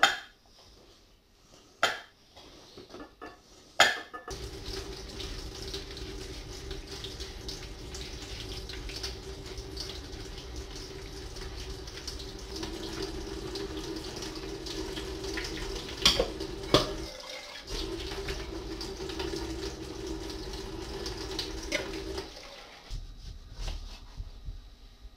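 Kitchen tap running into a stainless-steel sink as the juicer's plastic funnel and metal parts are rinsed under it, with a couple of sharp clinks partway through. A few knocks come before the water starts, and after it stops near the end there are light knocks of a knife cutting an orange on a plastic board.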